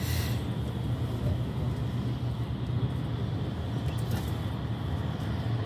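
Cabin noise inside a moving Mercedes-Benz Sprinter minibus: a steady low drone of engine and tyres on a wet road, with brief swishes at the start and about four seconds in as cars pass alongside.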